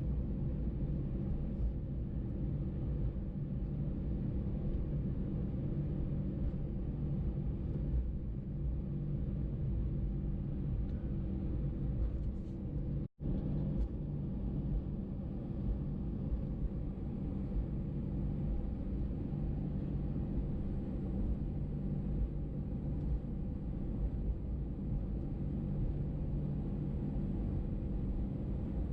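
Steady low rumble and hum inside the cabin of an Airbus A320 taxiing after landing, broken once about halfway by a split-second gap of silence.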